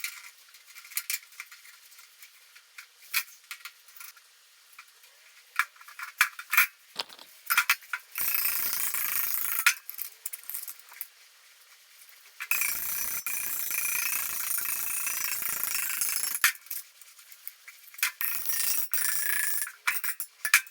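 Rust-repair metalwork on a truck radiator support: repeated sharp metallic clinks and taps of tools and steel, with two stretches of a steady, noisy power tool running, one short and one about four seconds long.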